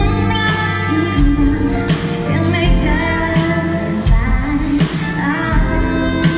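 Live band music: a woman singing a slow pop song over acoustic guitar, electric bass and a steady drum beat.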